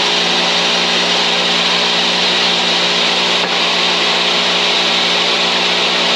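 Table saw running steadily and ripping a 2x4 lengthwise in half, the wood hiss over a constant motor hum.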